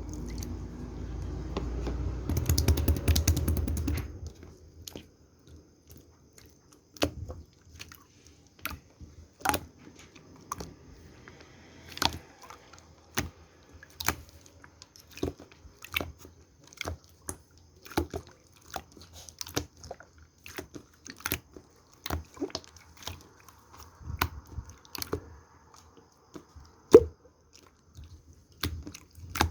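Slime being handled: a louder stretch of mixed handling noise for the first four seconds, then sharp clicks roughly once a second as the slime is pressed and poked.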